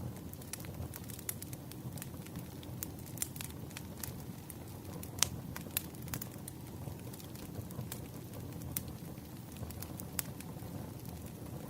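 Wood fire crackling: a steady low rumble of burning with irregular sharp pops and snaps from the burning logs, one louder pop about five seconds in.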